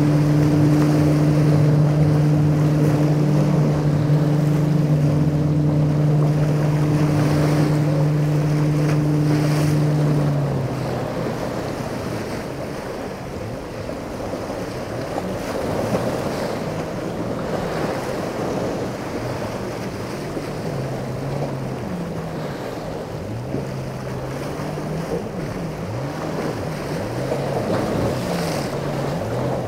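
Motorboat engine running at a steady idle, then cutting out about a third of the way through. Choppy waves slapping against the rock jetty, with wind buffeting the microphone.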